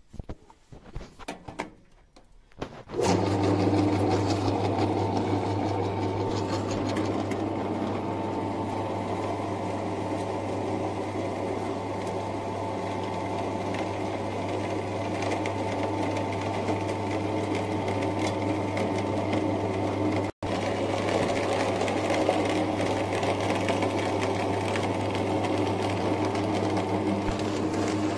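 Electric meat grinder starting about three seconds in after a few light clicks, then running steadily as it forces moistened chicken feed mash through its plate into strands.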